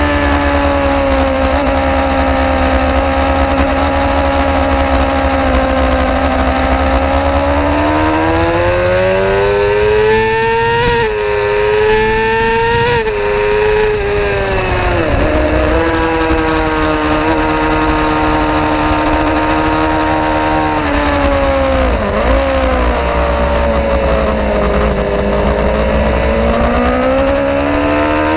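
Suzuki GSX-R 750 inline-four sport-bike engine at full throttle, heard from on board. The revs climb out of a corner and break twice for quick upshifts, then drop in steps as the bike brakes and downshifts, and rise again out of the next corner near the end.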